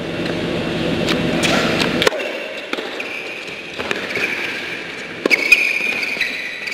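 Tennis ball struck back and forth by rackets in a doubles rally on an indoor hard court: about half a dozen sharp hits at irregular spacing, two of them in quick succession near the end. A thin high tone runs through the second half.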